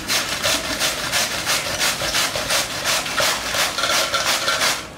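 Fresh cabbage grated on a stainless steel grater: quick, even rasping strokes that stop shortly before the end.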